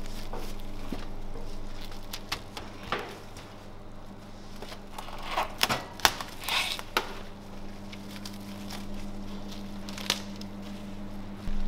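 Plastic stretch film crinkling and crackling in a run of sharp clicks as meat trays are wrapped, busiest about halfway through. A steady low hum runs underneath.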